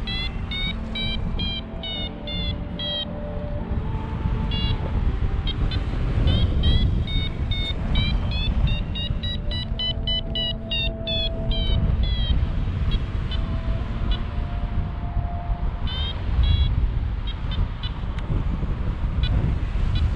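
A paragliding variometer beeps in quick short pulses, its pitch rising and falling in several runs, the tone a vario gives while the glider climbs in lift. Underneath is heavy wind noise on the microphone.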